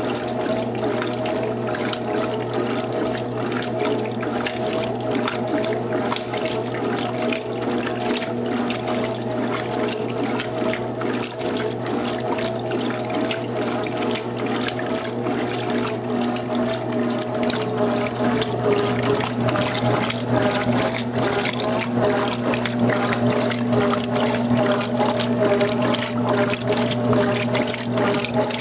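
Electrolux Top 8 top-loading washing machine in its rinse cycle: water rushing steadily in the tub over a constant electrical hum, a little louder in the second half.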